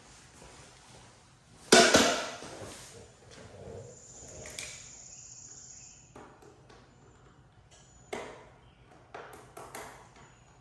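Clatter from removing motorcycle lower fairing parts by hand. A loud knock rings briefly, then a thin high ring holds for a second or two, and a few light clicks and taps come near the end.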